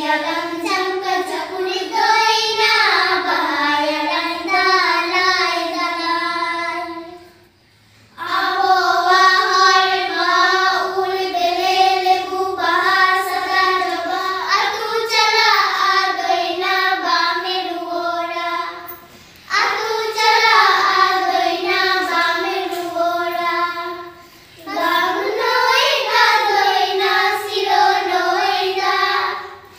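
Young girls singing a song while they dance, in long phrases broken by short pauses about 8, 19 and 24 seconds in.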